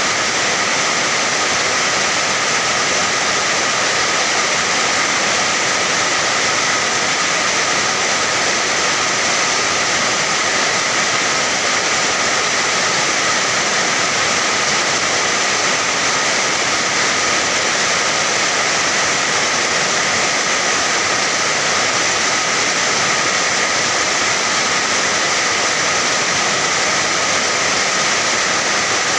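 Steady rain: an even, unbroken hiss, with no single drops or thunder standing out.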